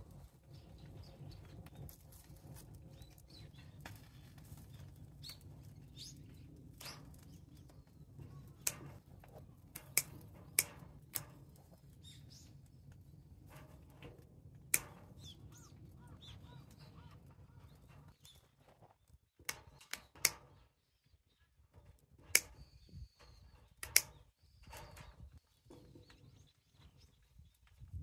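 Wild boar ribs grilling on a wire mesh over a drum-can fire: scattered sharp clicks and pops from the fire and the tongs on the grill, over a low steady rumble that drops away about two-thirds of the way through.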